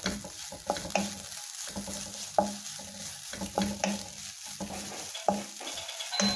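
A wooden spatula stirring and scraping grated coconut with shallots and curry leaves as they roast in a nonstick pan, the spatula knocking against the pan in irregular strokes over a steady frying hiss.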